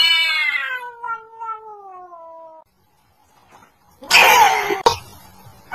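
Two domestic cats in a standoff, yowling: one long drawn-out yowl that slowly falls in pitch and stops abruptly, then about four seconds in a loud, harsh outburst, and a fresh yowl starting at the very end.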